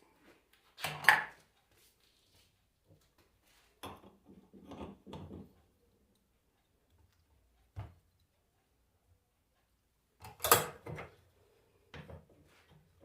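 Metal alternator parts and tools being handled and set down on a workbench: a series of separate clanks and knocks, the loudest about a second in and again about ten seconds in, with a cluster of smaller knocks around four to five seconds.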